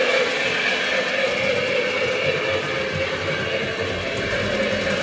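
Lionel Strasburg #89 2-6-0 Mogul O-gauge model locomotive running on Lionel Fastrack at a pretty good clip, a steady, unbroken rolling sound.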